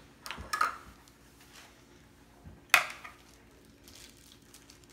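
Gloved hands mixing napa cabbage kimchi in a wooden bowl: a few soft, wet rustles of the leaves, and one sharp clink a little under three seconds in.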